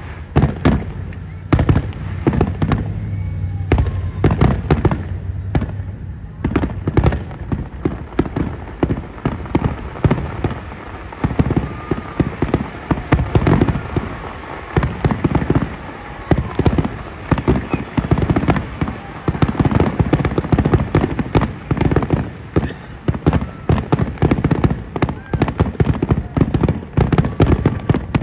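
Aerial fireworks shells bursting in a rapid, continuous series of sharp reports and crackles.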